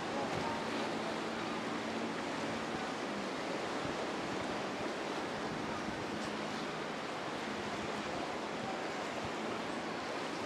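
Steady rushing of surf and breaking waves, with the faint, steady hum of a boat's outboard motor underneath at times.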